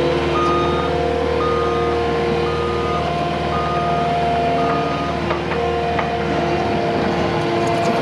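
Skid steer engine running steadily while its backup alarm beeps about once a second as the machine reverses.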